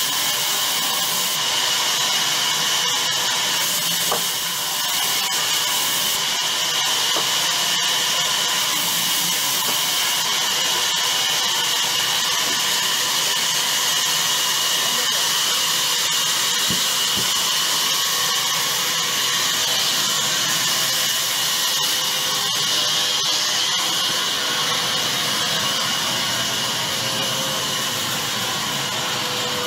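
Sawmill band saw running steadily while cutting through a log slab: a constant loud hiss with a steady high whine.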